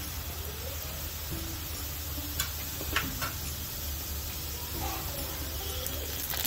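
Rice-flour murukku dough deep-frying in hot oil, the oil bubbling and sizzling steadily. A few sharp taps of a spatula against the pan come around the middle and once near the end.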